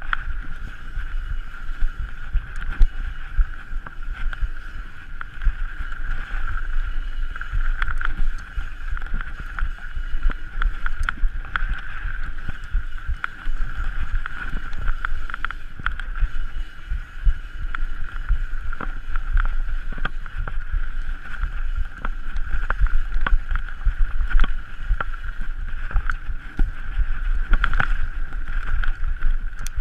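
Mountain bike ridden fast down a rough enduro trail: wind buffeting the microphone, with frequent clattering knocks and rattles from the bike over bumps. A steady high-pitched buzz runs underneath.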